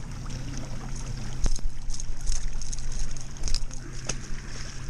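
Steady low hum of a pontoon boat's motor running under way, with water washing and wind on the microphone. A few sharp clicks come through as pliers work a treble hook out of a small fish.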